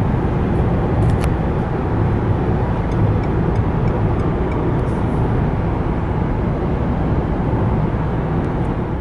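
Steady road and wind noise heard inside the cabin of a 2016 Renault Espace cruising on a motorway at about 110 km/h. It is a quiet cabin, measured at about 65–66 dB at 120 km/h.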